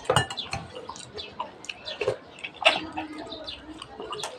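Eating at the table: mussel shells and a metal spoon clicking and clinking against a bowl, with chewing, sharpest just after the start and again around two to three seconds in.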